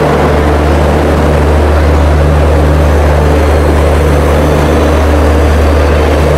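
A train's engine running at the platform, a steady low drone that does not change.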